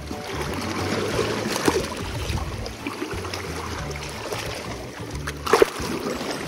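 Shallow sea water sloshing and lapping around a person wading, with a sharper splash-like knock about five and a half seconds in.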